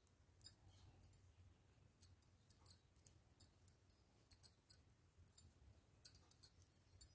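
Faint, irregular small clicks of knitting needles as stitches are worked by hand, a few each second.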